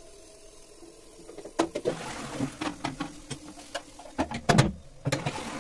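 Plastic cistern lid and parts being handled and fitted back onto a toilet cistern: a run of clicks and rattles, ending in a louder clunk about four and a half seconds in as the lid is set down.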